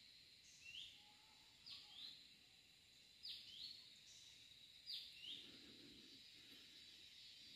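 Repeated high chirping calls from a small animal, each a quick falling note usually followed by a lower second note, coming about every one and a half seconds for the first five seconds. Underneath is a steady high-pitched insect drone.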